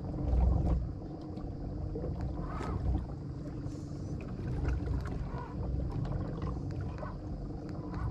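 A fishing kayak under way through lily pads: a steady low rumble of water moving along the hull, with scattered light knocks and ticks.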